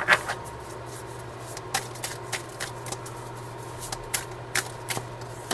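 Oracle cards being shuffled and handled by hand: a scatter of short, irregular snaps and taps of card on card.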